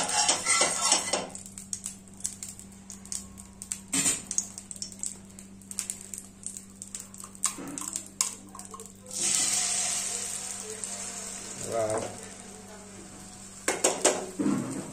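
A plastic spatula scrapes oil round a hot non-stick frying pan, followed by a few clinks of a steel mixing bowl and whisk. About nine seconds in, beaten egg is poured into the hot oil and a loud sizzle starts all at once, then slowly dies down as the omelette sets.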